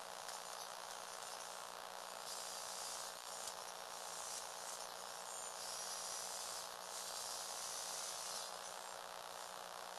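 Electric motors and gear trains of a Lego Technic log loader model whirring steadily as it drives forward, a high buzzing whine that swells a few times.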